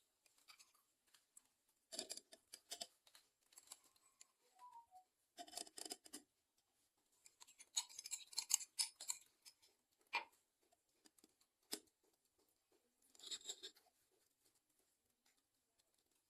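Intermittent bursts of scraping and clicking from kitchen utensils being handled while a drink is prepared: about six separate bursts with quiet gaps between them.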